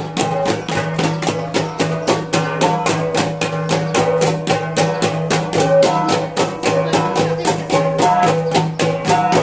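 Kalinga flat gongs (gangsa) played in the toppaya style: a fast, even run of ringing metallic strikes, around six a second, interlocking in a repeating pattern over a steady low tone.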